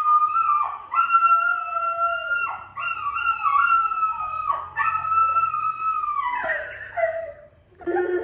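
A dog howling on the television in long, held notes that break off with a falling slide and start again, about four times in a row.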